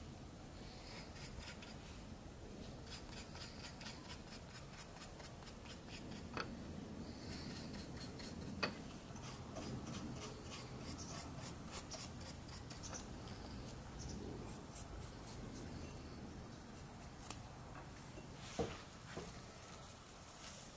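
Bristle paintbrush scratching in quick, rapid strokes as flaxseed oil is brushed onto a carved cedar S-hook, with a few light knocks scattered through.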